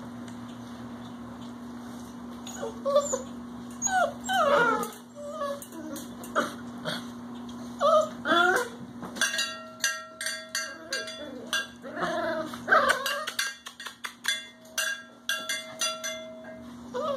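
Young puppies whining and yipping in many short, rising and falling cries, starting a couple of seconds in, with sharp clicks and rattles in the middle part, over a steady low hum.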